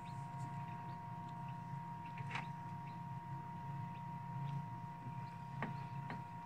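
Egg incubator's fan motor running with a steady hum and two steady tones over it, with a few faint clicks about two and a half seconds in and near the end.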